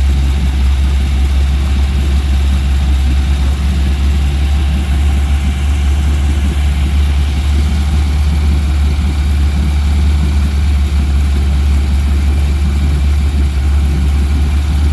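The boat's carbureted inboard engine idling steadily on its first start after the rebuild, with a deep, even hum and no change in speed.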